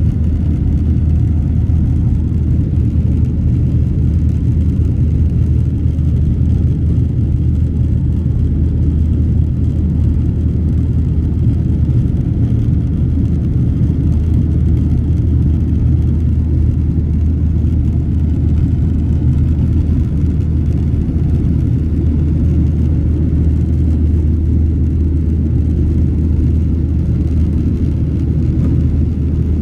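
Boeing 737-800 cabin noise during the climb after takeoff: its CFM56-7B turbofan engines and the rushing airflow make a steady low rumble that does not change.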